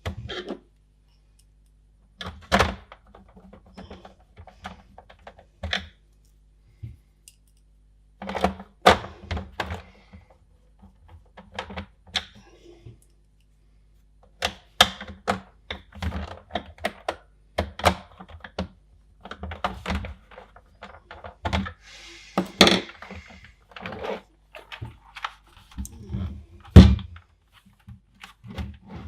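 Irregular clicks, taps and thunks of hard plastic parts being handled and fitted, with a louder knock near the end.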